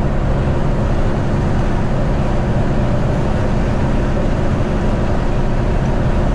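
Tractor-trailer's diesel engine running steadily under the load of a heavy refrigerated trailer, with road noise, heard from inside the cab.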